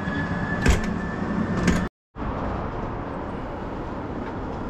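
Two sharp knocks about a second apart from handling a fifth-wheel trailer's exterior storage compartment door. After a momentary dropout, steady outdoor background noise follows.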